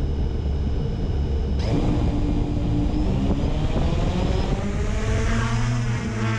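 Multirotor drone's electric motors and propellers running: a steady whine at first, then a sudden rush of propeller noise from about a second and a half in.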